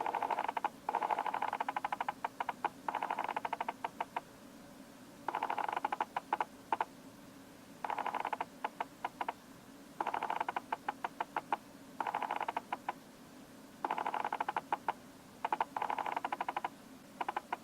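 Autofocus motor of a Canon EF 85mm f/1.8 USM lens buzzing in repeated short bursts as it racks focus back and forth, with trains of quick clicks between the bursts.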